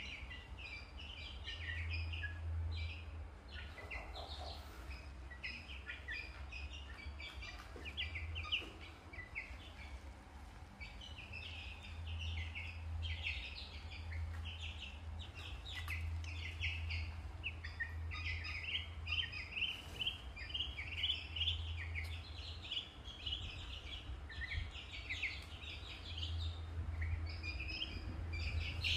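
Ducklings peeping: many short, high chirps in quick succession, over a low steady hum.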